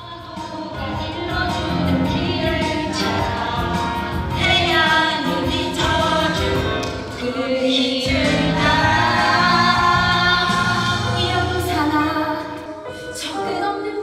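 A chorus of older women, Jeju haenyeo, singing a Korean song together.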